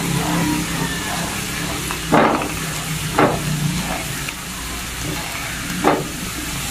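Coconut cream frying in its own separated coconut oil in a wok, sizzling and bubbling steadily as the latik curds brown, at the stage where the latik is done. A spatula stirs through it with a few short louder strokes, about two, three and six seconds in.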